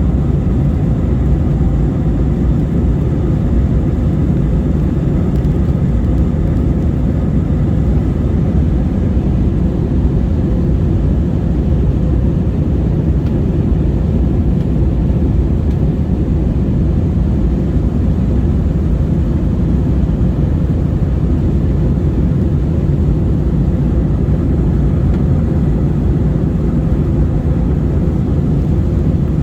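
Steady jet engine and airflow noise heard inside a passenger airliner's cabin, an even low rumble with a faint steady hum in it.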